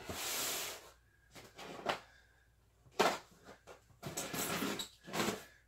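Styrofoam shipping case being handled and pried open, foam rubbing and scraping on foam: a rush of about a second, then four short scrapes.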